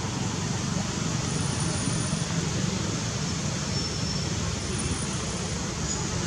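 Steady outdoor background noise: an even rushing hiss over a low hum, with no monkey calls.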